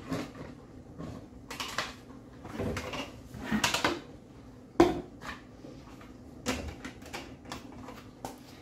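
Plastic food-storage containers and lids clattering and knocking as they are taken out of a kitchen cupboard and set down: a string of irregular light knocks, the sharpest a little before the five-second mark.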